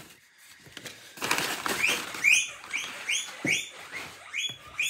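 Crumpled kraft packing paper rustling and crinkling as it is pulled out of a cardboard box, with a run of short, high, squeaky chirps repeating about twice a second over it.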